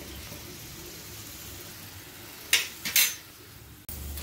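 Chopped onions and green chillies sizzling gently in hot oil in a steel pan, with two sharp metal clinks of a steel spoon against the pan about two and a half and three seconds in.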